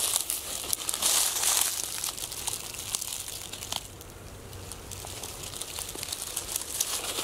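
Footsteps crunching through dry fallen leaves and brittle grass, a dense crackle that is busiest in the first couple of seconds, thins out around the middle and picks up again near the end.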